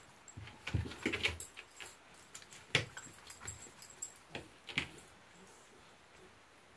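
A dog licking and nibbling at her own coat: irregular wet clicks and taps, most of them in the first five seconds, with a light metallic jingle from her harness.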